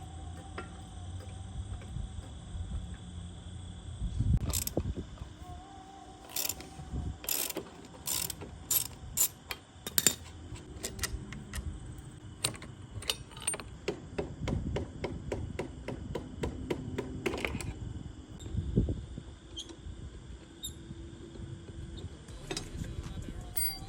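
Socket ratchet clicking in several quick runs, mixed with scattered clanks and knocks of metal tools and parts, as bolts on a scooter's front end are worked loose.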